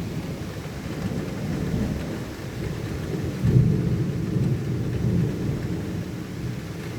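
Rolling thunder: a long low rumble that sets in suddenly, swells to its loudest about halfway through and rolls on, with rain falling.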